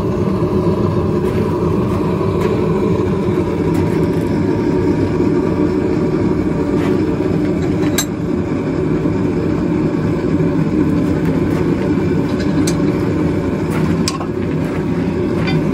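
Gas forge burner running with a steady roar, with a few sharp metallic clinks about halfway through and near the end.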